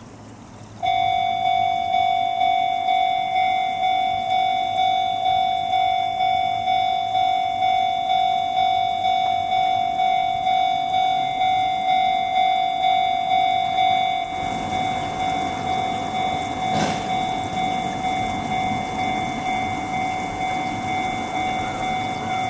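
Railway level-crossing warning bell ringing in an even, repeating ding at about one and a half strokes a second. In the last third, the noise of an approaching train rises beneath it.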